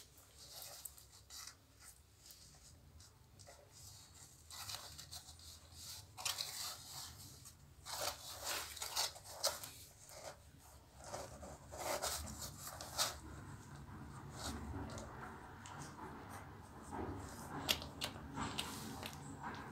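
Newborn blue pit bull puppies nursing at the mother dog: irregular wet sucking and smacking noises with rustling, busiest and loudest in the middle.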